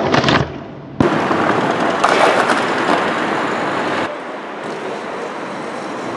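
Skate wheels rolling over rough pavement: a loud, gritty crackling rumble that stops briefly and starts again abruptly about a second in, then gets a little quieter about four seconds in.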